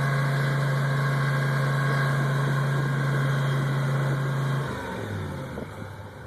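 Off-road rock-crawling buggy's engine running at steady revs, then letting off about three-quarters of the way through and dropping to a lower, quieter idle.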